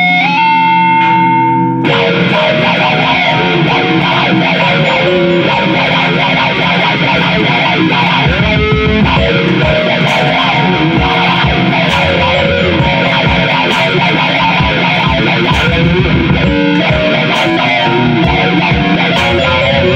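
Electric guitar played over a backing beat: a held lead note is bent up in pitch, then about two seconds in the guitar breaks into dense, distorted playing with regular drum hits behind it.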